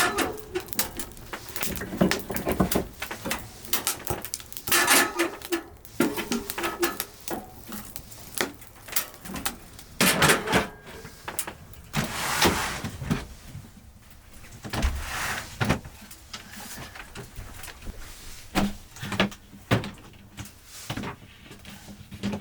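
Things being handled and set down in a small room: an irregular run of knocks, clicks and rustles, with a door or drawer sliding.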